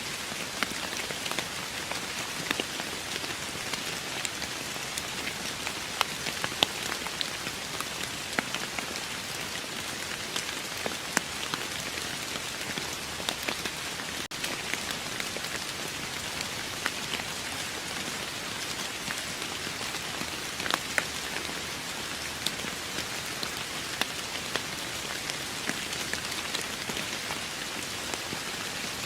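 Steady rain falling on a surface: a constant hiss with many individual drops pattering and ticking sharply through it.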